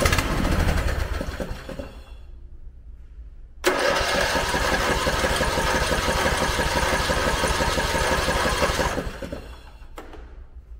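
Briggs & Stratton 20 HP Intek engine of a Craftsman riding mower cranked over by its starter in two tries: a short one ending about two seconds in, then a longer one of about five seconds starting near the four-second mark. It spins but doesn't catch, which the owner puts down to not getting enough fuel.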